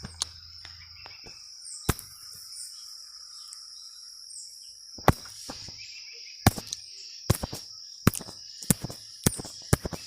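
Outdoor ambience: birds chirping in short falling notes over a steady high-pitched drone, typical of insects. Sharp clicks or knocks come now and then, more and more often in the second half, and are the loudest sounds.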